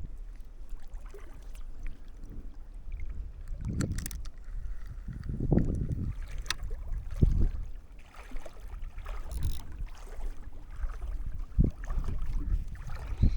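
Canoe paddling on a creek: paddle strokes in the water and several separate knocks against the hull, over a low wind rumble on the microphone.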